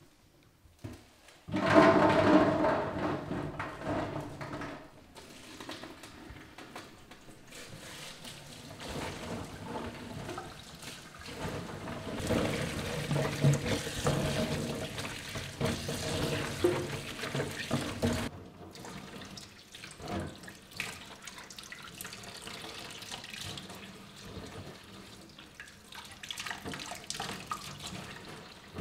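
Kitchen tap running into a stainless-steel sink over chilli peppers being rinsed and rubbed by hand; the water comes on sharply about a second and a half in. The flow sounds lower in the second half, with small knocks from the peppers being handled.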